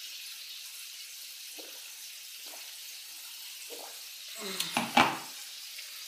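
Someone eating salad with a fork from a metal tray: faint chewing and fork sounds over a steady hiss. A brief, much louder noise with a sharp peak comes about four and a half to five seconds in.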